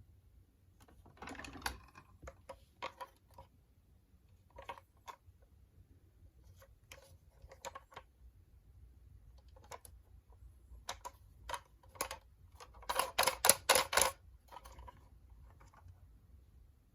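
Toy mini cars being handled and set down: scattered light clicks and taps, then a quick run of louder clacks near the end.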